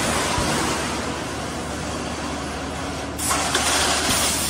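CANDID GWC2500 wire-mesh welding machine running with a steady hum and noise, with a sudden hiss about three seconds in.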